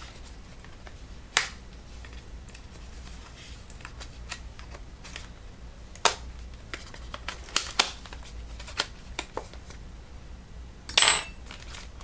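Scattered clicks and light taps of small computer parts and tools being handled on a workbench, with a brief scraping rustle near the end, over a low steady hum.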